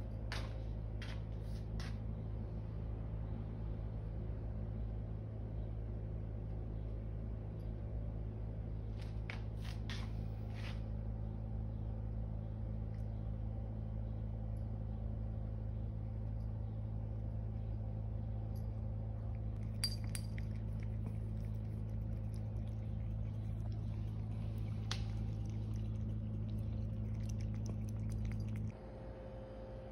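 A cat eating wet food from a ceramic bowl on the floor: scattered light clicks and clinks of chewing and of the bowl, over a steady low hum that cuts off near the end.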